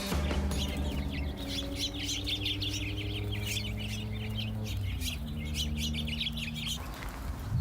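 Many small birds chirping rapidly and continuously over a steady low hum that shifts in pitch about five seconds in; the chirping stops near the end.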